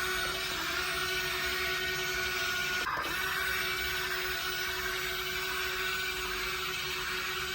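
Small electric motor of a remote-control model excavator whining steadily, with a brief break about three seconds in.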